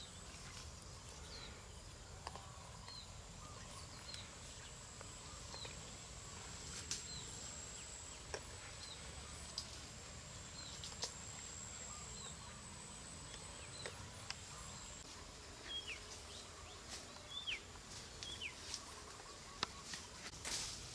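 Faint outdoor ambience: a steady high insect buzz, a bird's short high chirp repeated about once a second, and a few scattered light clicks and taps.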